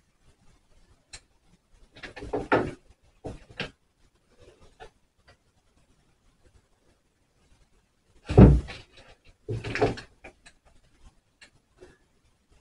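Short bursts of crunching and rustling from hands working with hair and scissors, four in all, with a louder thud about eight seconds in.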